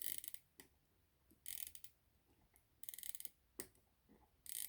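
Mainspring of a 16-size Majestic pocket watch being wound: the click chatters over the ratchet wheel in four short bursts of rapid fine clicks, about one every second and a half, one for each winding turn, putting power into the train.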